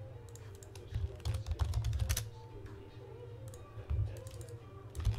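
Typing on a computer keyboard: a quick run of keystrokes about a second in, then a few scattered key clicks.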